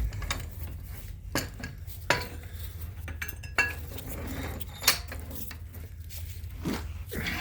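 Scattered sharp metallic clinks of hand tools working on a seized rear brake bracket and its slider hardware, about one every second or so, over a low steady hum.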